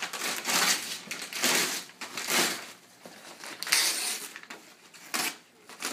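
Gift wrapping paper being torn and crumpled off a large cardboard TV box, in about five separate tearing bursts.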